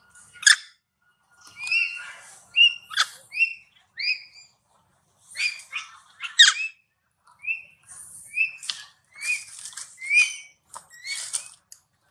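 Baby long-tailed macaque squeaking again and again: short, high, whistle-like calls, each note rising then falling, with a few louder, sharper squeals among them.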